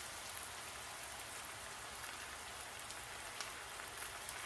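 Onions frying in hot oil in a pan: a steady, fairly faint sizzle with a few small crackles.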